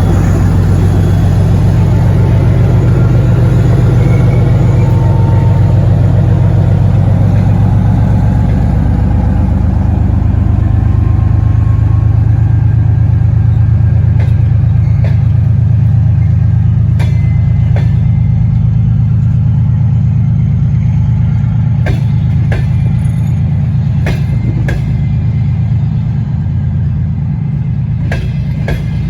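A 2TE10UT diesel locomotive's 10D100-series two-stroke opposed-piston diesel running under load: a loud, deep, steady drone that slowly fades. From about halfway on, sharp irregular clicks of wheels over rail joints come through.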